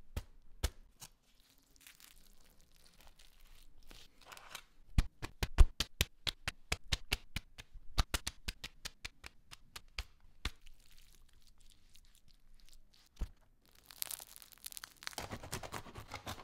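Sandwich-making sounds: a quick run of light taps and slaps, about five a second, through the middle as the fillings go on, then the crust of a focaccia loaf crackling as it is pressed down by hand near the end.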